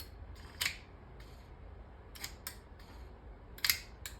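Honda Civic door lock actuator and latch being cycled between locked and unlocked, a few sharp mechanical clicks spaced about a second apart: the new actuator is working.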